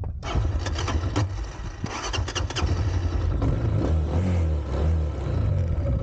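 Motorcycle engine running and being revved, its pitch rising and falling from about halfway through, with a few sharp clicks in the first couple of seconds.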